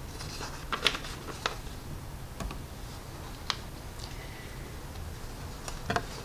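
Quiet room tone with about half a dozen soft, scattered clicks and ticks, short and sharp, spread across the few seconds.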